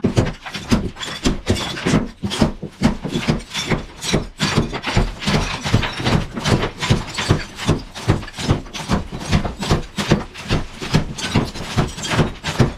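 Hammer striking and smashing old ceramic wall tile and plaster off a bathroom wall: rapid, irregular sharp blows, several a second.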